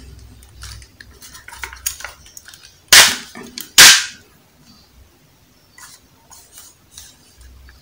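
Two loud, sharp plastic clacks a little under a second apart as the hinged speaker wings of an old folding mini portable speaker are swung open, with quieter handling clicks and rubbing of the plastic case around them.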